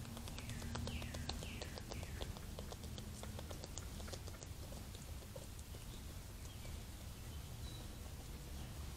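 Raccoons foraging in grass: faint rustling and clicking over a steady low hiss, most busy in the first half. Four short falling chirps come in the first two seconds.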